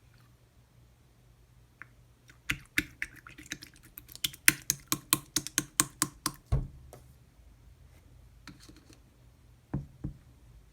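Chewy, bouncy slime being pressed and squished by hand, giving a quick run of sharp pops and clicks, several a second, from about two and a half seconds in to about seven, then two more pops near the end.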